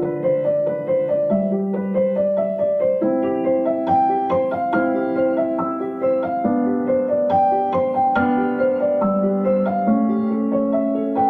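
Background piano music: a steady run of single notes over held lower notes.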